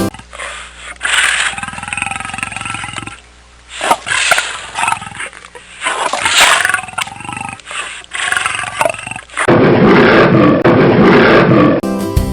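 Lion roaring repeatedly, a run of rough roars and grunts with short breaks between them. About nine and a half seconds in comes a louder, denser stretch of roaring.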